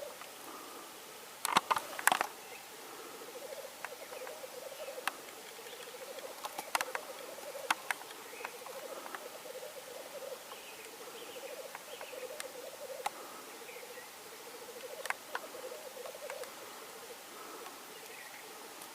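Male black grouse bubbling in their courtship display: a continuous pulsing, cooing warble. Short sharp sounds cut through it now and then, loudest about two seconds in.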